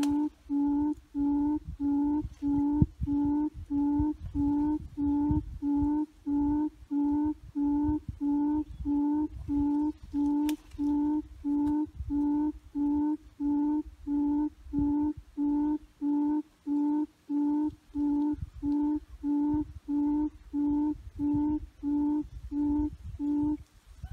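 A recorded bird call played in a loop through a loudspeaker as a hunting lure: one short hooting note at a fixed pitch, repeated very evenly nearly twice a second, stopping shortly before the end. A low rumble runs underneath.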